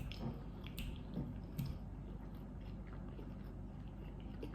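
Faint chewing and wet mouth sounds of a person eating, with a few soft clicks in the first second and a half, then only a low background.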